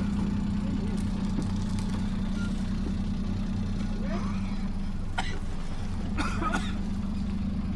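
Kei truck's small engine running at a steady low speed, with a few short knocks and rattles from the truck about four to seven seconds in as it crawls down rocky steps.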